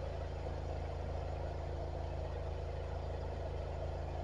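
Drain water jetter's engine and high-pressure pump running steadily, driving the jet that is clearing a grease blockage from a sewer line.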